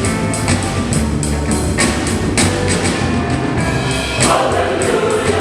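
Choir singing a gospel song over band accompaniment, with a drum kit keeping a steady beat of cymbal strokes.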